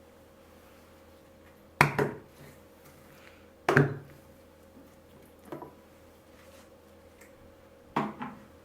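Four sharp knocks on a wooden kitchen surface, about two seconds apart, each ringing briefly; the third is softer.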